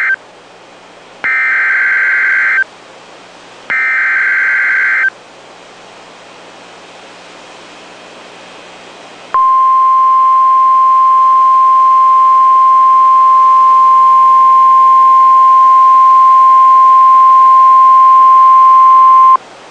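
NOAA Weather Radio EAS alert signals. The end of one burst and then two more bursts of the SAME digital header, a harsh warbling screech about a second and a half long each. After about four seconds comes the steady 1050 Hz warning alarm tone, held for about ten seconds and cut off abruptly. This tone signals that a warning message, here a severe thunderstorm warning, follows.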